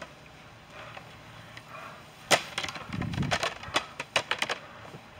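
Yellow plastic wet-floor caution signs clattering and knocking against a stepladder and folding chair as they are handled and set in place. A quick run of sharp clacks comes about two seconds in, with a dull thud among them.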